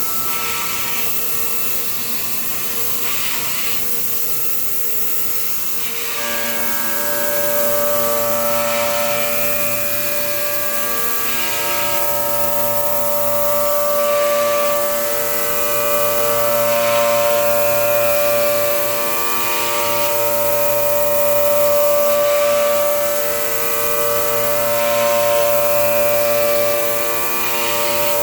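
High-speed CNC milling machine spindle running and cutting: a steady whine of several high tones whose pitches change about six seconds in, with a hissing cutting noise that swells every two to three seconds.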